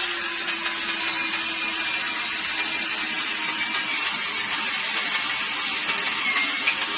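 A machine running steadily: an even high whine over a hiss, with no change in speed.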